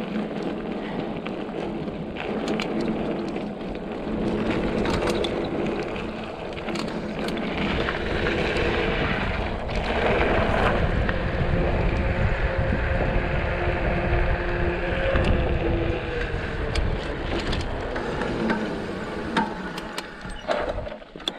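Mountain bike rolling along a dirt trail: steady tyre noise with a low hum, frequent small clicks and knocks as the bike rattles over the ground, and wind rumbling on the action camera's microphone.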